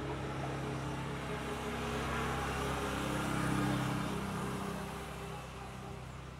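A motor vehicle's engine running steadily as it goes past, growing louder to a peak about halfway through and fading near the end.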